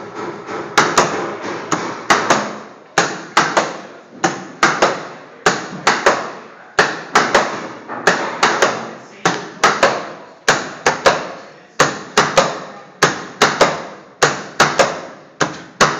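Magnetic motor-control contactors in a time-delay marquee lighting circuit clacking in and out in a repeating sequence as the lamps chase. The clacks come mostly in close pairs, about one pair every 1.2 seconds, each with a short ringing decay.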